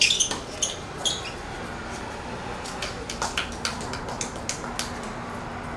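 A series of short, sharp clicks and knocks, bunched near the start and again in the middle at about four or five a second, over a steady background hum.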